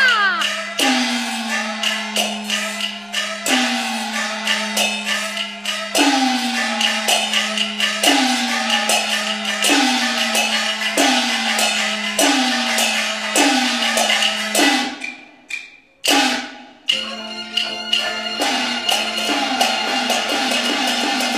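Chinese opera percussion playing an interlude: metallic strikes about once a second, each sliding down in pitch as it rings away, over sharp wooden clicks. It breaks off briefly about three quarters of the way through, then comes back in.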